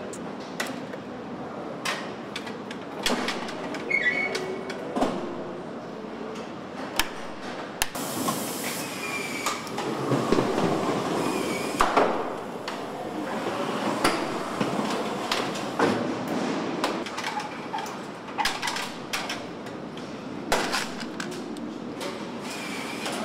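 Ambient noise of a bulldozer assembly plant floor: a steady hiss and hum, broken by many sharp metallic knocks and clanks at irregular intervals.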